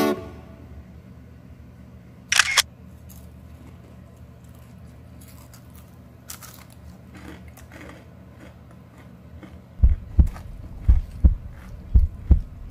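Heartbeat sound effect: three deep double thumps, lub-dub, near the end. Earlier there is a single short, sharp click-like burst.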